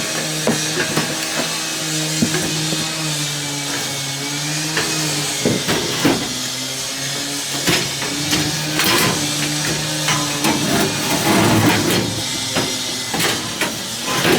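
Scrap metal clanking and knocking as pieces are handled and loaded, with repeated sharp impacts, over background music with sustained notes.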